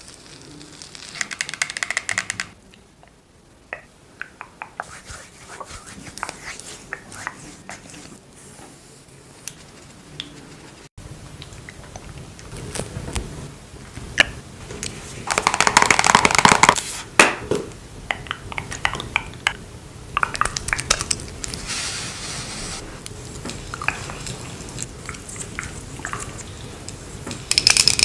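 Close-miked ASMR handling sounds of skincare and makeup: a sheet mask peeled off the face near the start, then a run of small clicks and taps, with a louder noisy stretch about midway and another short one near the end.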